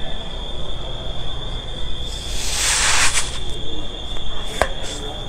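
Bubble Yum bubble gum being blown into a big bubble: a breathy hiss of air a couple of seconds in, then one sharp pop a little past four and a half seconds in as the bubble bursts. A steady high tone hums underneath.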